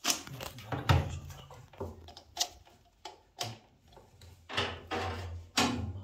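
A string of knocks, clunks and scrapes from handling a microwave oven and the plug at a wall socket, the loudest knock about a second in.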